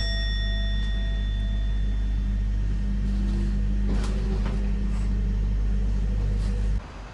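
Steady low rumble of a train, with a few faint clicks, cutting off suddenly near the end.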